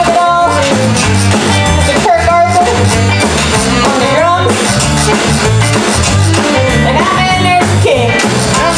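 Live Cajun band playing a song at full volume: saxophone, electric guitar, bass, drums and rubboard over a steady beat, with a lead line bending in pitch.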